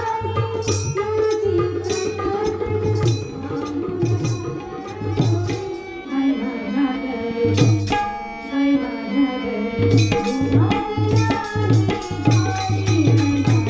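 Marathi devotional bhajan music: a sustained melody under steady hand-drum beats. The drumming drops out for a few seconds in the middle and comes back in.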